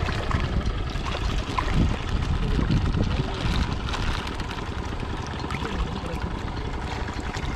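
Fish-feed pellets pattering onto river water as they are poured from a plastic bag, over a steady wash of water noise with a low rumble and small surface splashes from feeding fish.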